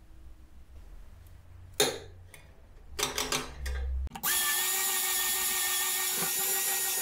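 Light handling and rustling of copper wire with one sharp click, then from about four seconds in an electric drill starts and runs steadily with a whine, spinning a welding rod that has copper wire coiled around it.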